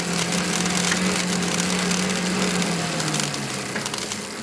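Pedal-powered grain de-huller and cleaner running at normal pedalling speed: a steady hum from its belt-driven fan and flywheel under a dense hiss and fine crackle of wheat passing through the grinder and pouring down the chute.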